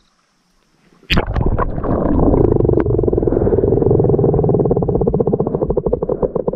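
A camera plunging into shallow stream water about a second in, with a splash, then the muffled rumble of water heard from under the surface, turning into a rapid fluttering pulse near the end.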